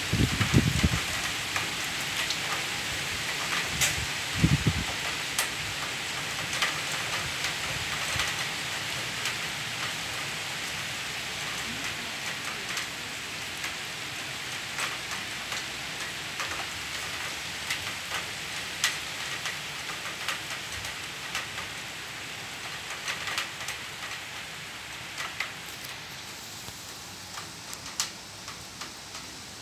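Heavy thunderstorm rain falling steadily, with sharp ticks of drops striking nearby surfaces and a couple of low rumbles in the first few seconds. The rain eases gradually toward the end.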